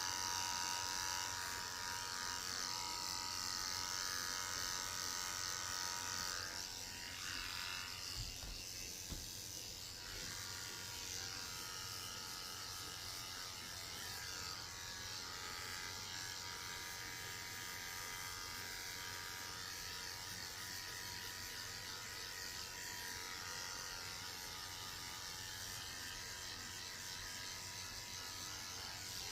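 Electric dog grooming clippers running steadily as they shave the dog's coat down.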